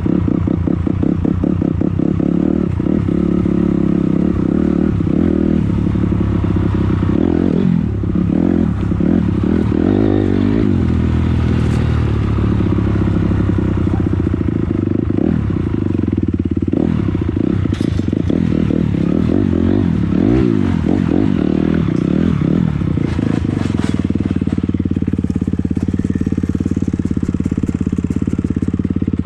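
A 250 dirt bike engine revving up and down repeatedly while being ridden off-road, with a few sharp knocks. It settles to a steadier, even note for the last few seconds.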